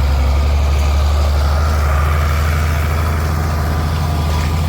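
Farm tractor engine running steadily with a loud, even low hum while pulling a hay tedder.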